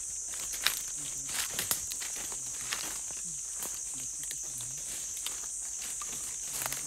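Irregular footsteps on the forest floor, a string of short crunches and clicks, over a steady high insect drone.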